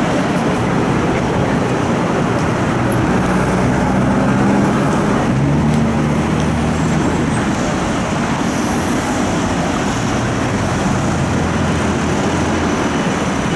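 Busy city street traffic: a steady wash of car and road noise. A vehicle's low engine hum swells and fades through the middle.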